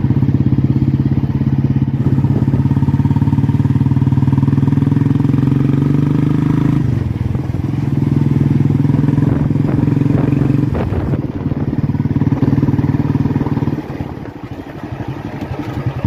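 Royal Enfield Classic 350's single-cylinder engine running loud through an aftermarket Indori silencer while the bike is ridden, a steady pulsing exhaust beat under throttle. The beat changes about seven seconds in and the loudness falls off near the end.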